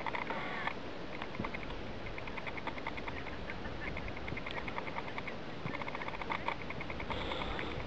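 Large rockfall of rock and snow: a steady rumble with quick runs of sharp clattering and cracking from tumbling rocks, thickest near the start and near the end.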